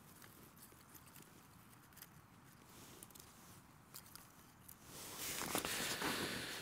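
Faint handling noises: soft rustling and a few small clicks, turning into louder rustling about five seconds in, as gear is rummaged through.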